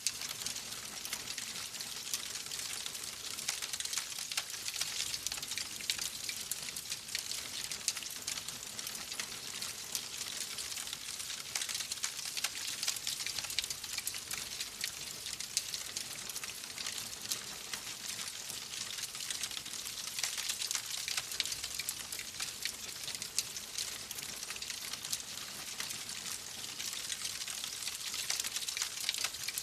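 Wood fire crackling in a fireplace: a dense, continuous run of small pops and snaps over a steady hiss.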